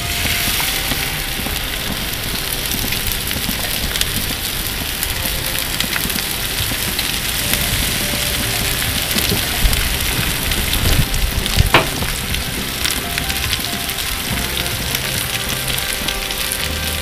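Cauliflower steaks sizzling steadily on a hot grill stone. A few sharp knocks come about two-thirds of the way through.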